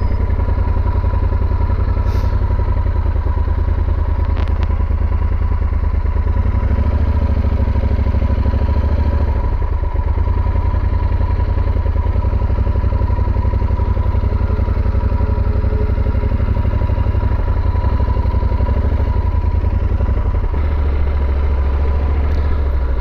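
Yamaha Super Tenere's parallel-twin engine running at low speed, its note rising and falling with the throttle a few times.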